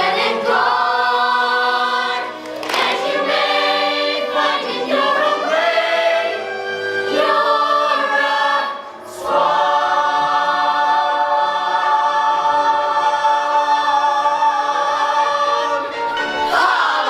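A children's theater cast singing together in chorus, the notes changing every second or so in the first half, then one long held final chord for about seven seconds that ends just before the close.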